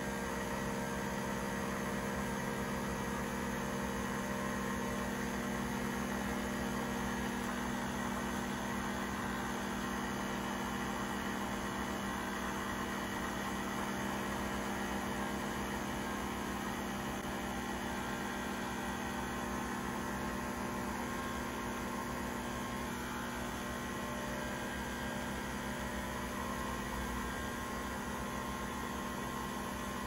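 Nespresso VertuoPlus capsule coffee machine brewing, a steady mechanical hum as coffee streams into a glass of ice.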